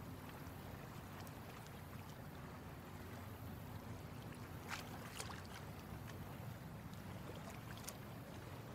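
Faint lake ambience: water lapping, over a steady low rumble, with a few brief splashy clicks about halfway through.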